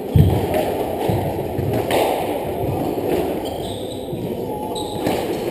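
Squash rally: a few sharp hits of racket on ball and ball on the court walls, ringing in the enclosed court, the loudest about a quarter second in and others near two seconds and near the end, over steady background noise.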